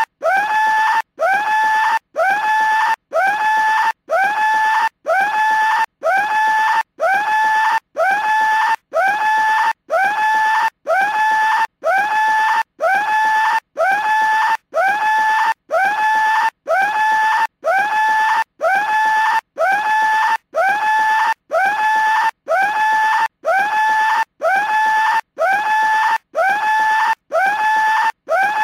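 Skull-shaped cartoon telephone ringing with a short scream, repeated about once a second. Each scream swoops up quickly and then holds one pitch before a brief gap.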